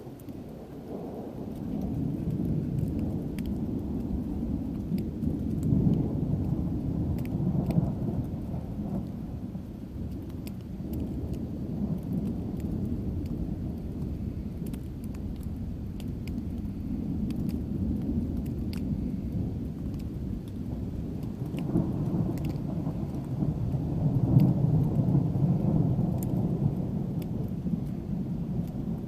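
Thunder rolling in two long rumbles: the first builds within the first couple of seconds and peaks a few seconds later, and a second, louder roll swells near the end. Rain patters throughout, with scattered drops ticking.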